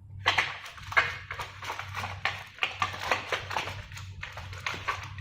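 Plastic parts and packaging being handled: a quick, irregular run of clicks, taps and rustles that starts about a quarter second in.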